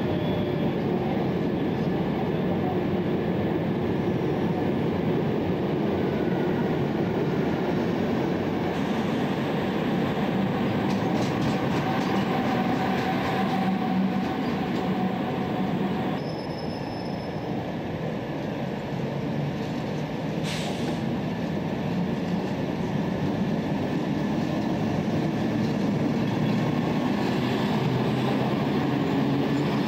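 A train of double-deck car-carrier wagons rolls slowly along a platform with a steady rumble of wheels on rail. A faint thin squeal comes and goes in the middle, and there is a single sharp click about two-thirds through. Near the end a low hum grows as the SNCB class 27 electric locomotive comes alongside.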